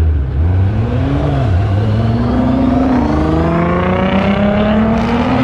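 Nissan R35 GT-R and ZL1 Camaro accelerating hard side by side in a roll race, engine note climbing, dropping back at upshifts about one and three seconds in, then climbing again.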